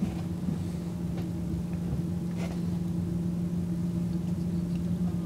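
Engine running steadily, heard from inside a bus as a low, even drone at one constant pitch, with a few faint clicks.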